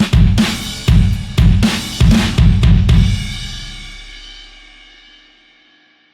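Sampled pop-punk drum kit from the EZdrummer 3 Pop Punk EZX library playing a driving kick-and-snare beat with cymbals for about three seconds. It ends on a final crash hit that rings out and fades away over the next three seconds.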